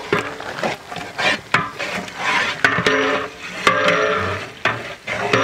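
A long-handled metal ladle stirs and scrapes sliced onions, green chillies and cinnamon sticks in hot oil in a large aluminium pot, knocking against the pot every second or so over the sizzle of the frying.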